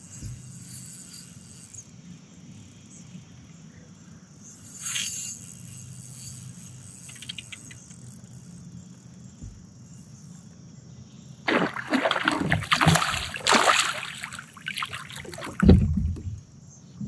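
Water splashing and thrashing beside a kayak in loud, irregular bursts starting about two-thirds of the way in: a hooked toothy fish fighting at the surface as it is reeled to the boat.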